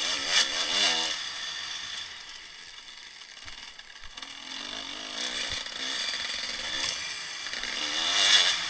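Dirt bike engine revving up and down as the rider works the throttle. It drops lower for a couple of seconds in the middle, then climbs again and is loudest near the end. A steady rush of wind on the helmet-mounted microphone runs underneath.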